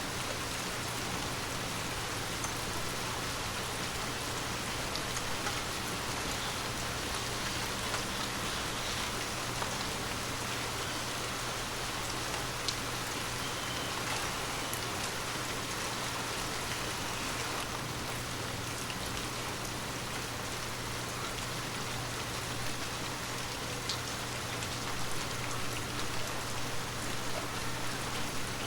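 Water drops pattering steadily on glass, a dense even patter with a few distinct drips standing out here and there.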